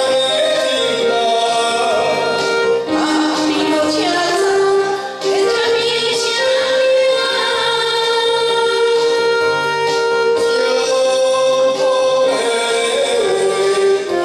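A man and a woman singing a ballad duet over a backing track, with long held notes over steady accompaniment.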